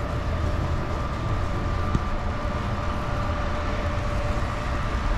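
A motor running steadily: a constant low rumble with a steady whine over it.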